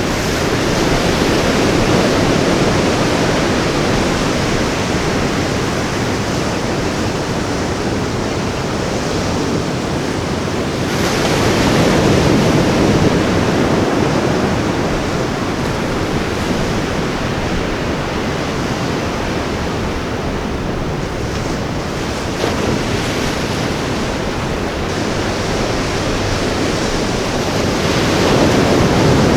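Ocean surf washing onto a beach: a continuous rush of water that swells as waves break, about a second in, around twelve seconds in, and again near the end.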